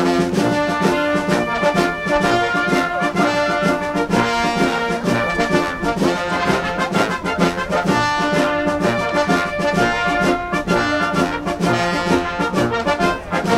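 Brass band with trumpets playing held chords that change every second or so.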